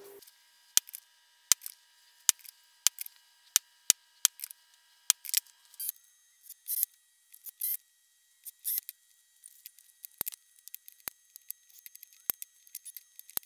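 Metal parts of a drill-driven jigsaw attachment being handled and fitted together: a string of sharp, irregular metallic clicks and taps, with a few short hissing bursts in the middle.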